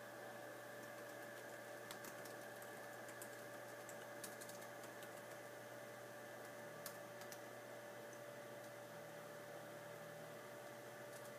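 Quiet room tone: a steady electrical hum with a constant mid-pitched tone, broken by faint, irregular small clicks.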